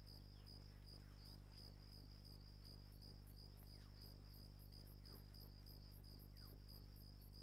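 Faint crickets chirping in a steady, even pulse, about four to five chirps a second, over a low steady hum.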